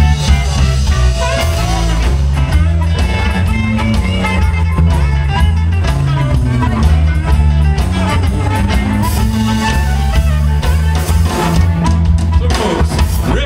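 Live electric blues band playing through a PA: electric guitar, bass guitar and drum kit, with a strong bass line and a harmonica played into a hand-held microphone.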